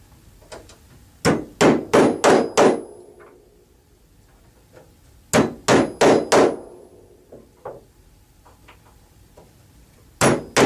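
Hammer pounding steel T-nuts flush into a wooden backer board: three quick runs of four or five blows each, with a few light taps between.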